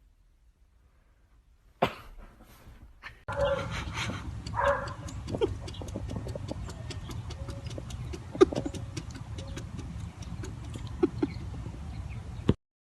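A dog's short vocal sounds over a steady background noise, with a faint regular ticking of about three to four strokes a second. A sharp click comes about two seconds in, and the sound cuts off suddenly near the end.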